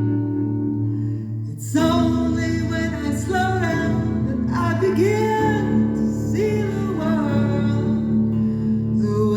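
Acoustic guitar playing held chords, joined about two seconds in by a woman singing a slow melody with sliding, drawn-out notes.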